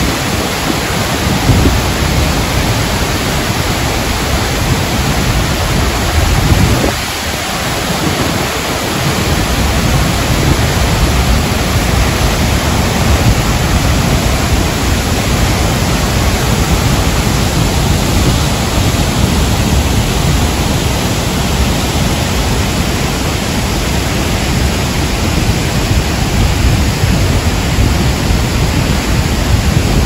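Large waterfall crashing into a rocky plunge pool: a loud, steady rush of water. The deep rumble drops away briefly about seven seconds in.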